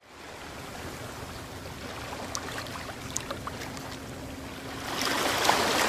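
Seawater lapping and sloshing around a camera held at the sea surface, with small droplet ticks, swelling louder about five seconds in as a swell passes.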